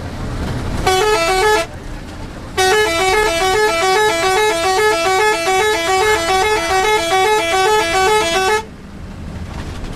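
An intercity bus's multi-tone 'telolet' horn playing a quick tune of rapidly alternating notes, about four a second: a short burst about a second in, then a longer run of about six seconds. Between the bursts the bus's engine and road noise rumble in the cabin.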